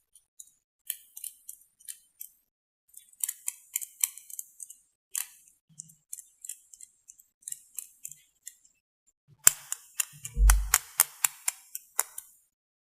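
Close-miked eyebrow pencil handled and used for ASMR: a run of small crisp clicks, taps and scratches in clusters. A dull thump on the microphone comes about ten and a half seconds in.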